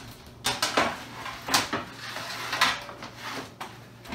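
Baking sheets clattering as one is pulled out of a lower kitchen cabinet: a string of sharp knocks and scrapes, the loudest about a second and a half in.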